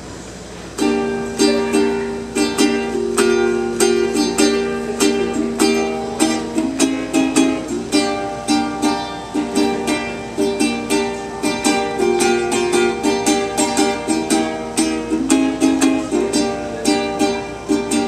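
Ukulele strummed in a steady rhythm, starting about a second in, with the chords changing every few seconds: a solo ukulele introduction with no singing yet.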